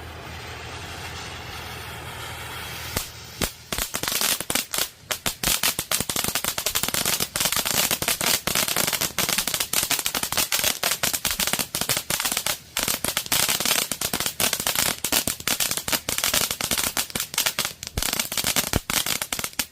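Consumer firework fountain (Miracle's The Crazy One) spraying with a steady hiss, turning about three seconds in into a dense, rapid crackle that keeps going and then stops abruptly.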